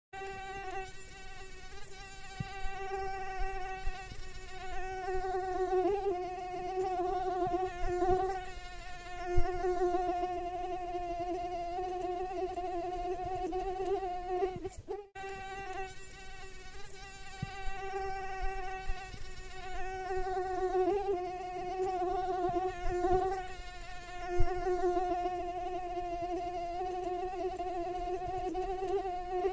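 Mosquito wing whine: one steady, slightly wavering buzz that holds its pitch, cutting out for a moment about halfway through and then starting again. Two short sharp ticks stand out, one a third of the way in and one past the middle.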